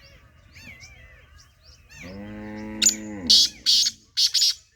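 A cow moos once, a steady low call of about two seconds that drops in pitch at its end, over faint chirping of small birds. Near the end come three short, harsh, high bursts, the loudest sounds here.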